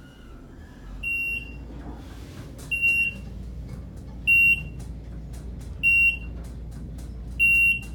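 Traction elevator car descending, its floor-passing beeper giving a short, high beep about every 1.6 s as it passes each floor, five in all, over the steady low hum of the car in motion.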